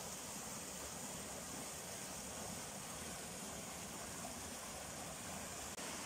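Steady, even rainforest background hiss, strongest in the high range, with a brief dropout near the end.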